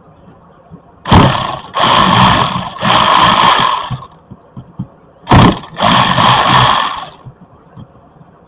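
Cordless electric ratchet running in bursts as it backs out the bolts holding the AC expansion valve block: it runs in a few short spurts from about a second in to about four seconds, stops, then runs again for about two seconds.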